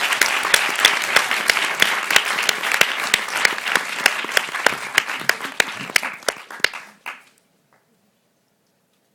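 Audience applauding, the clapping thinning out and stopping about seven seconds in.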